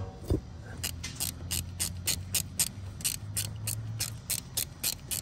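Hand ratchet clicking steadily, about four clicks a second, as it turns a T30 Torx bit on an extension to back out a one-time bolt. The clicking starts about a second in.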